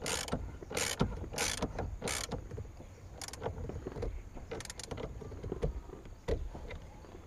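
Socket ratchet clicking in short runs as its handle is swung back and forth, tightening the steering-wheel hub bolt onto the steering shaft. Four quick runs of clicks come in the first two and a half seconds, then a few sparser ones later.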